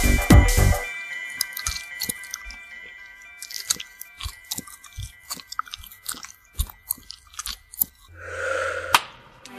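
Chewing-gum sound effect: irregular wet clicks and smacks of chewing, then a short swelling rush as a bubble is blown, ending in a sharp pop near the end. The synth tune's last bass notes fade in the first second.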